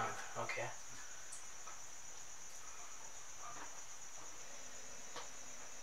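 Crickets chirping in a steady, high-pitched trill, with a few faint brief murmurs now and then.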